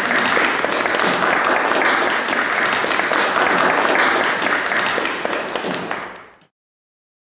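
Audience applauding, a dense, steady clapping that fades out and stops about six seconds in.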